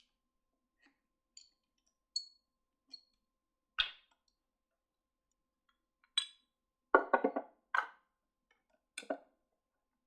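Small hard parts and hand tools being handled on a bench. There are a few light clicks with a brief high ring in the first half, then a cluster of sharper knocks in the second half.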